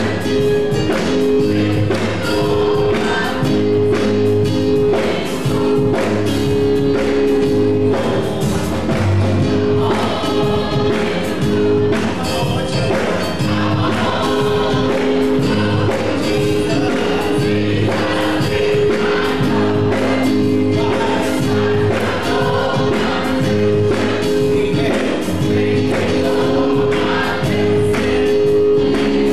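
Gospel choir singing with keyboard accompaniment holding sustained chords over a steady beat.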